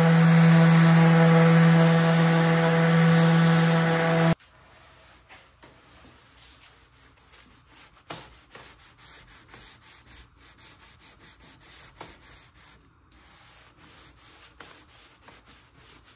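Random orbital sander running steadily on an epoxy resin and wood tabletop, a loud even hum that stops abruptly about four seconds in. Then sandpaper is rubbed by hand along the table's edge in short repeated rasping strokes, much fainter.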